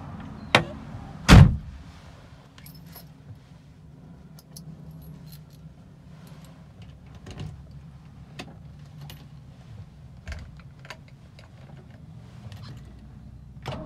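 Car keys jangling and clicking in the cockpit of a 1960 Aston Martin DB4, with scattered small metallic ticks, as the car is readied to be started. A click and then a heavy thump about a second in are the loudest sounds.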